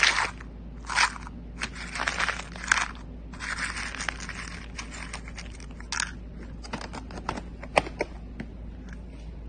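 Irregular scraping and rustling with scattered sharp clicks and taps. The scraping comes in short bursts through the first half, and the clicks take over in the second half, the loudest one about eight seconds in.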